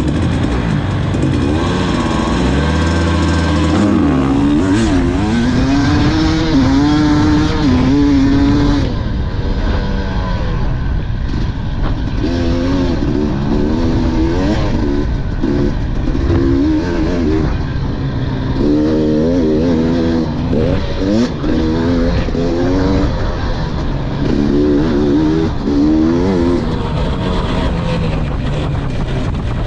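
KTM dirt bike engine revving hard at race pace, its pitch rising and falling again and again as the rider works the throttle and gears. Wind rushes over the bike-mounted microphone throughout.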